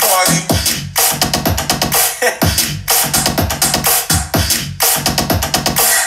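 Electronic hip-hop track with a steady drum-machine beat and record scratching, played loud through a portable Bluetooth speaker during a volume test.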